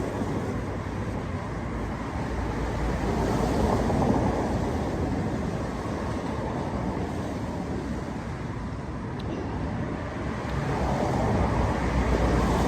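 Road traffic on a busy main road: a steady rush of cars passing, swelling louder about four seconds in and again near the end.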